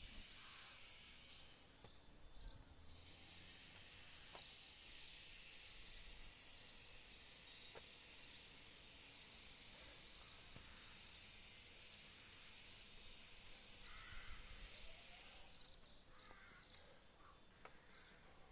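Faint, steady, high-pitched insect chirring that breaks off for a moment about two seconds in and stops near the end, with a few faint bird calls near the end.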